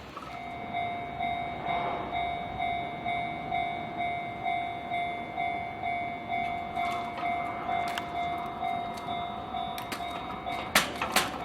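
Japanese level crossing's electronic warning bell starts ringing, an even ding-ding at about two strikes a second, warning of an approaching train. Near the end two sharp clacks stand out above the bell.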